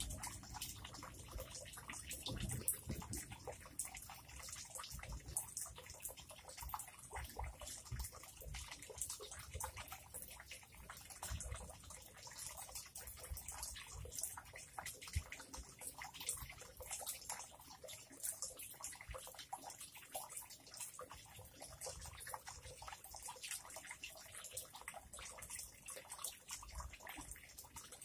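Faint water trickling and splashing into a pond: a steady, irregular patter of small drips and splashes.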